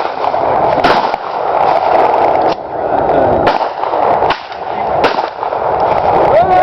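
Gunshots at a shooting range: about seven sharp reports, irregularly spaced, over a steady background noise.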